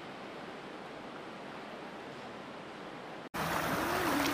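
Steady wash of floodwater and outdoor noise. About three seconds in it cuts abruptly to louder rushing floodwater, with a person's voice.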